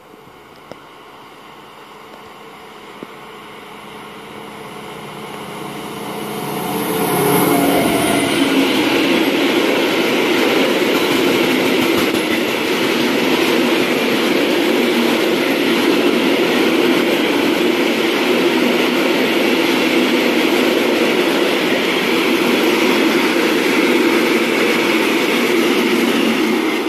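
Freight train approaching and passing close: a rising rumble for the first six or so seconds, a brief high whine about seven seconds in as the locomotive goes by, then the wheels of a long rake of covered hopper wagons rolling past with loud, steady noise.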